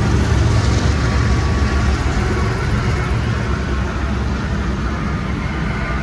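A lash-up of CSX diesel-electric freight locomotives passing close by: engines running with a steady low drone over the rolling noise of steel wheels on rail, easing slightly as the units go by.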